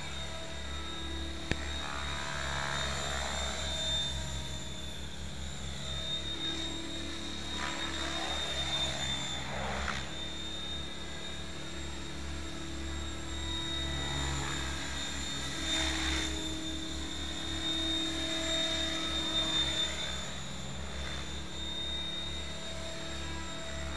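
Mikado Logo 600 electric RC helicopter in flight: a steady motor and rotor whine with blade swish, rising and falling in pitch several times as it passes back and forth.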